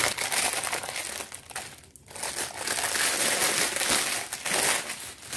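Clear plastic packaging around a pack of reusable silicone storage bags crinkling and rattling as it is handled, with a brief lull about two seconds in.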